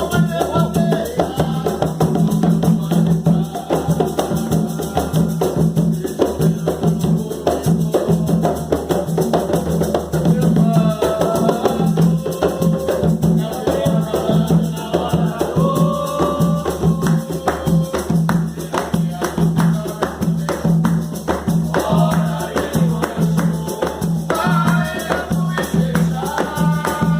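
An Umbanda ponto sung to Oxum, with voices over a steady rhythm of hand drums and a shaker.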